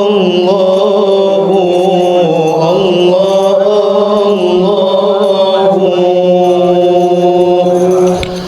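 A solo voice singing a long, drawn-out melismatic sholawat line, with no drums, pausing briefly for breath near the end before the next phrase begins.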